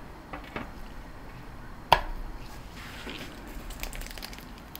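Iced shortbread cookies being handled with plastic-gloved hands: a sharp click with a brief ring about two seconds in as a cookie is set down, among light taps and soft rustling.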